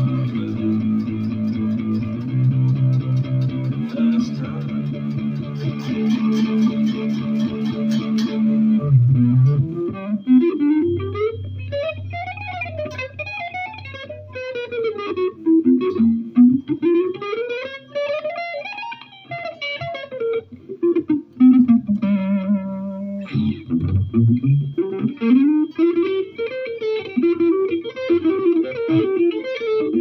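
Electric guitar played without singing: held chords for about the first nine seconds, then fast runs of single notes sweeping up and down in pitch.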